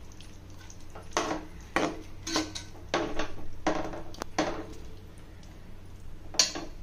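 A metal spoon knocking and scraping against a cooking pan as the gravy is stirred. There are about seven sharp clinks, roughly one every half second, then a pause and a last clink near the end.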